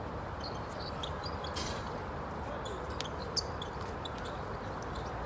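Outdoor basketball court ambience: a steady background of noise with scattered faint ball bounces and short high chirps, and one louder knock about three and a half seconds in.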